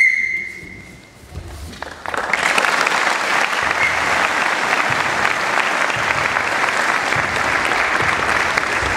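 One high, steady whistle blast lasting about a second, then audience applause that starts about two seconds in and carries on to the end.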